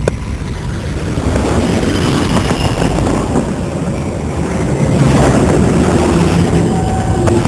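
Jet airliner passing low overhead: a loud rushing noise that builds to its loudest about five seconds in.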